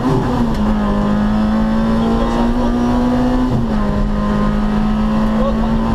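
Rally car engine heard from inside the cabin, running hard at steady high revs along a straight. Its pitch climbs slowly and drops briefly twice, just after the start and about three and a half seconds in. Tyre and road noise sit underneath.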